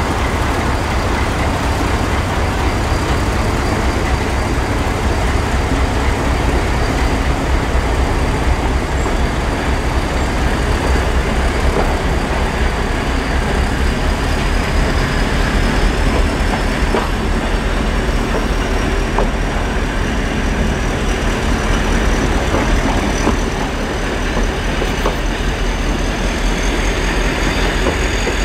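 Vintage diesel locomotive hauling a passenger train past: a steady low engine and rolling rumble as the coaches go by, with a few faint wheel clicks over the rail joints. A thin high whine rises slowly in pitch in the second half.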